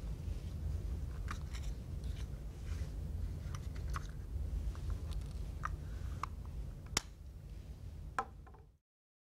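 Small plastic clicks and taps of a HandiHaler inhaler being handled and opened in the hands, scattered irregularly over a low steady room hum, with one sharp click about seven seconds in and another about a second later. The sound cuts off abruptly near the end.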